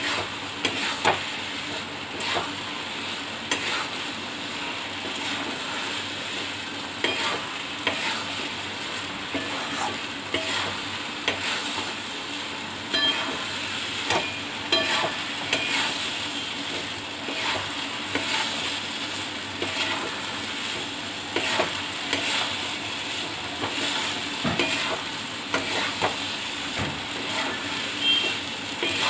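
Steel spatula stirring and scraping a thick semolina halwa around a metal kadai, with irregular scrapes and knocks against the pan about once a second over a steady low sizzle. The halwa is being stirred constantly on a medium flame to cook it down dry without sticking.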